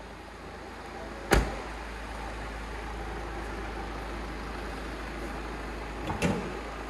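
A car's driver door shutting with one sharp slam about a second in, over a steady low hum. A softer double knock comes near the end.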